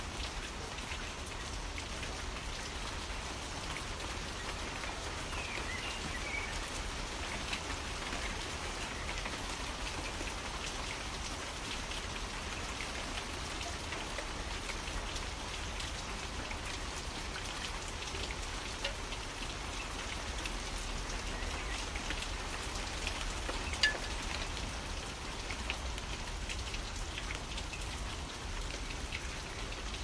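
Steady rain falling, a constant hiss made up of many individual drops ticking. One sharper tick stands out about three quarters of the way through.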